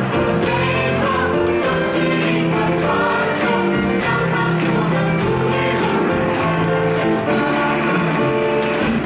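Musical-theatre cast singing together over band music, continuous and loud with long held notes.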